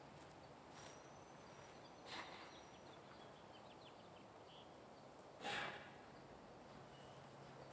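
Near silence: faint outdoor background with a few soft footstep scuffs on dry dirt and gravel. The clearest scuff comes about five and a half seconds in.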